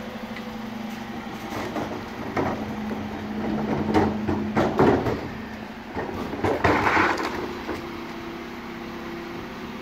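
Refuse lorry running with a steady hum, broken by several knocks and clatters, the loudest about four and about seven seconds in.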